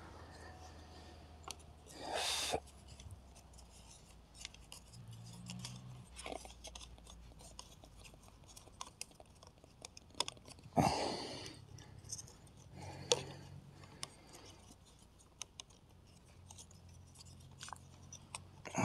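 Thin wooden sticks of a hand-built stick-lattice trap being pressed and straightened under tension: scattered clicks, creaks and wood-on-wood scraping, with a few louder short crunches, the loudest about eleven seconds in.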